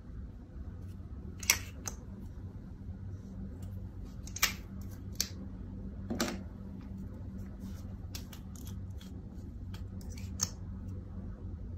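Several separate sharp plastic clicks and taps as lip gloss tubes, caps and wands are handled and set down, over a steady low hum.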